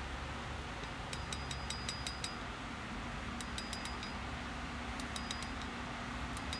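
Light hammer taps on a hot chef's knife blade lying on a steel anvil, straightening the blade. The taps come in four quick runs, each tap with a brief high ring from the anvil. A steady low hum runs underneath.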